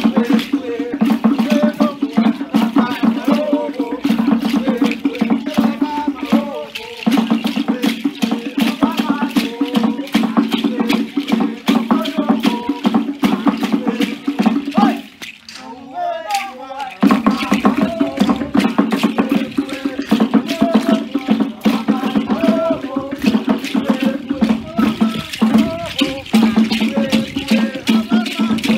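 Seed-pod ankle rattles shaking rapidly to stamping dance steps in a Vanuatu custom dance, over voices chanting along. The rattling stops for about two seconds midway, then starts again.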